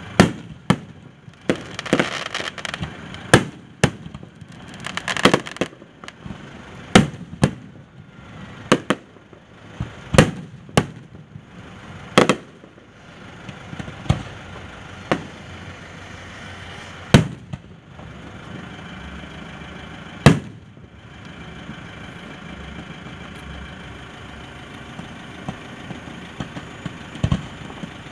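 Fireworks display: a string of sharp bangs from bursting shells, sometimes several a second with crackling in between. After about thirteen seconds the bangs thin out, and near the end there is mostly a steady rushing noise with an occasional bang.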